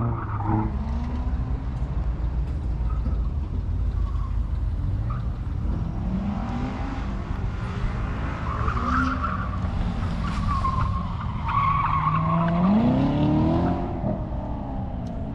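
Cars racing around a cone course in a parking lot (autocross): engines revving up and down, with tyres squealing through the turns in the middle and an engine revving up sharply near the end.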